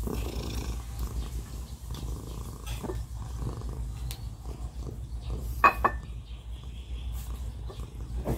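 Eating by hand close to the microphone: chewing, with small mouth clicks and smacks over a steady low rumble. One short, sharp high-pitched sound stands out a little over halfway through.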